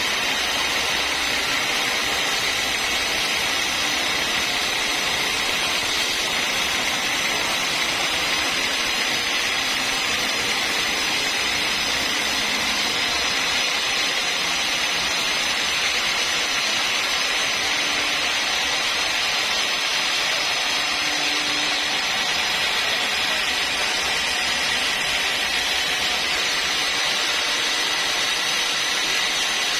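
Sawmill saw running steadily, a continuous machine noise with a high steady whine.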